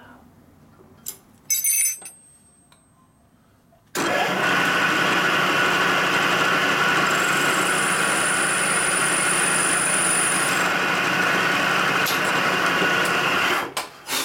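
Vertical milling machine spindle running with an end mill cutting the center bore of a steel motorcycle sprocket, opening it up a couple of thousandths more so it fits the sprocket adapter. A few metallic clinks come first, then the machine starts abruptly about four seconds in, runs steadily with a thin high whine partway through, and stops shortly before the end.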